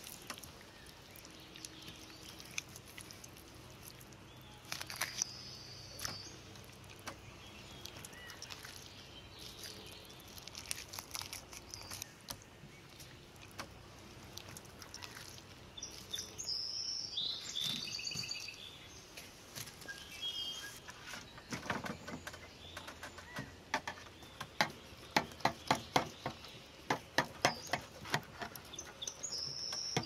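Small birds chirping now and then, with wet handling noises and sharp clicks and knocks as a sturgeon is gutted on a metal tray. The clicks come thick and fast in a run over the last several seconds and are the loudest sounds.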